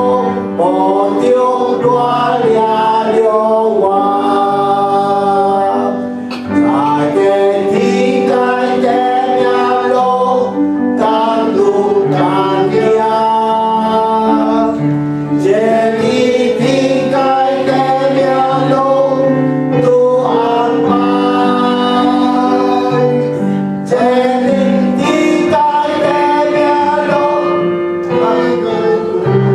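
A worship song sung in Hainanese with instrumental accompaniment, held notes moving from phrase to phrase.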